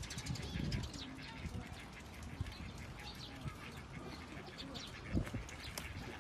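Sparrows chirping busily in quick, short calls, with a few low thumps; the loudest thump comes about five seconds in.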